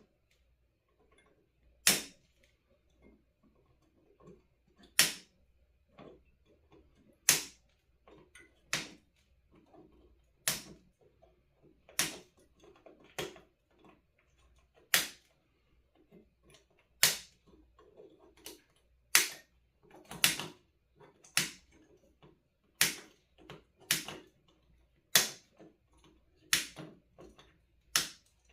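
Sharp single clicks, about one every one to two seconds at an irregular pace, with faint rustling between them, from work on an electronics kit circuit board.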